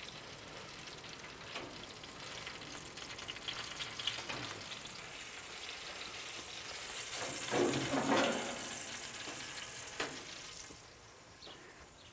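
Rotisserie picanha sizzling and crackling on its spit, fat and juices dripping onto the hot drip pan of a gas grill. The sizzle swells louder about eight seconds in, with a sharp click about ten seconds in, and dies down near the end.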